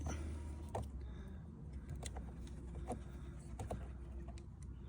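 Scattered light clicks and taps of a small plastic car-door puddle light unit and its connector being handled, over a steady low hum.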